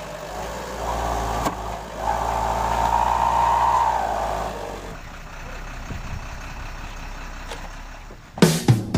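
Light cargo truck's diesel engine working under load as the truck climbs off a raised concrete slab edge, swelling with a steady whine for a few seconds, then easing back to a lower drone. Strummed guitar music comes in near the end.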